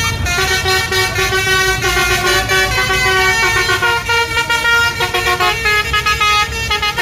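Bus 'telolet' musical horn of the Basuri type playing a tune: loud horn notes held for a moment each and stepping up and down in pitch, over a low rumble.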